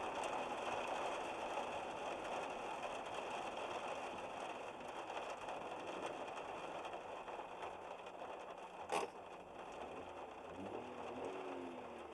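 Heavy downpour: a steady hiss of rain, gradually getting quieter, with one sharp click about nine seconds in.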